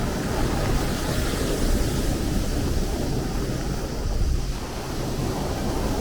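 Sea surf: a continuous rush of waves with a deep, steady rumble underneath.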